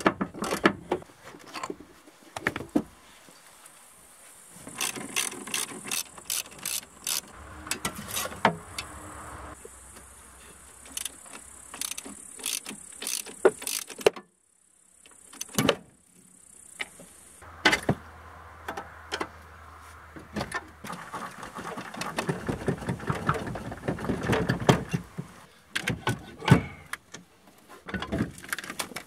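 Hand tools working on a car's rusted parts: a socket ratchet clicking, with scattered metal knocks and clanks, broken by a brief gap near the middle.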